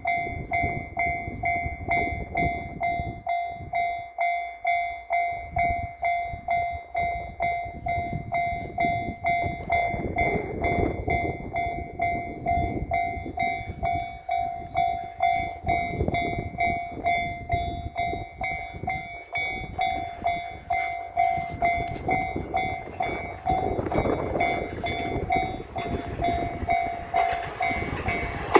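Level-crossing warning bell ringing in a steady, even rhythm of about one and a half strikes a second; it starts right at the beginning. Over the last few seconds the rumble of an approaching train rises beneath it.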